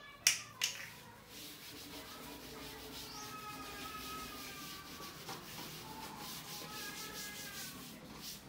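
Two sharp clicks, then a wet wipe rubbed steadily back and forth over a surface.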